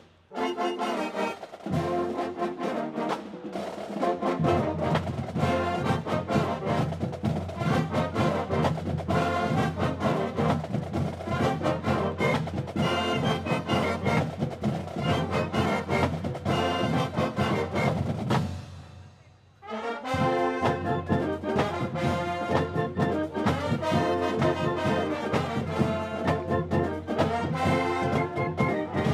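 A college band of saxophones, clarinets, trumpets and sousaphones playing a brass-heavy tune with a steady beat. The sound fills out with low notes about four seconds in, and the band breaks off for about a second roughly two-thirds of the way through before starting up again.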